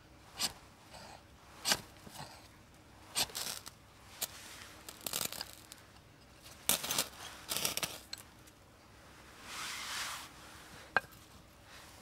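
Firewood being split and broken up by hand: irregular sharp knocks and cracks with splintering, tearing sounds of wood fibre between them.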